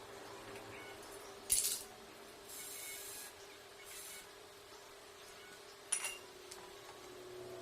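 Hands working on electric fan parts: a few short rubbing and scraping sounds, a longer hiss, and a sharp metallic click about six seconds in, over a faint steady hum.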